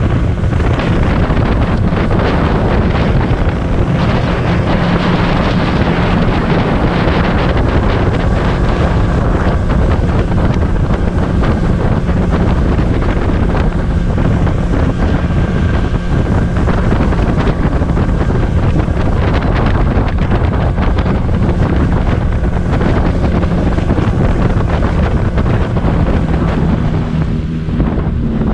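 Small boat under way: an outboard motor runs at a steady pitch under heavy wind buffeting the microphone.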